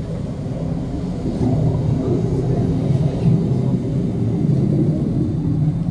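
Steady low rumble of background machinery in an aquarium viewing tunnel, growing slightly louder about a second in.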